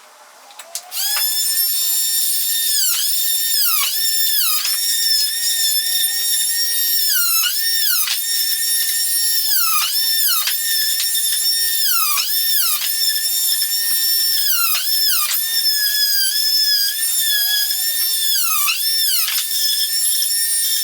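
Electric saw cutting a wooden stair stringer: a steady high motor whine that keeps dipping in pitch for a moment as the blade bogs in the wood, then recovers.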